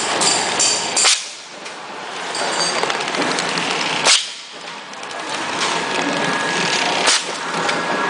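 Horizontal flow wrap packing machine running: a steady mechanical clatter with rapid fine ticking, broken by three sharp clacks about three seconds apart.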